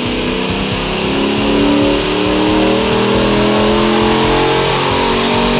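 Holden Caprice sedan's engine pulling under load on a chassis dyno, its pitch climbing steadily as the revs rise. A thin high whine climbs along with it.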